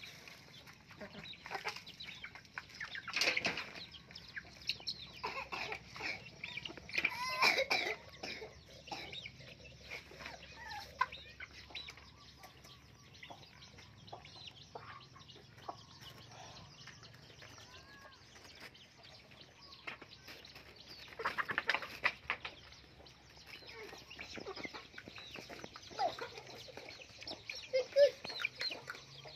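A flock of young chickens clucking and calling, with many short calls throughout and louder bunches about 3, 7 and 21 seconds in.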